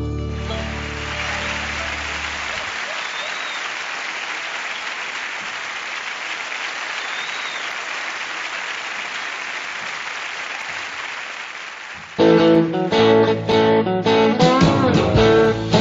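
Audience applause as the band's last chord dies away over the first few seconds. About twelve seconds in, a country band starts the next tune, guitars to the fore.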